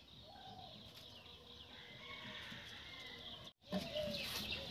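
Birds calling over faint rural ambience; about three and a half seconds in the sound drops out briefly and returns louder, with light crackling from split wood burning in a clay wood-fired stove.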